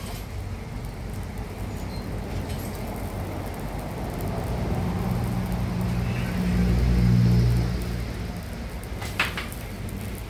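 Stick (arc) welding a steel patch on a fuel tank, the arc running with a steady hiss. A low rumble swells and fades in the middle, and a sharp click sounds near the end.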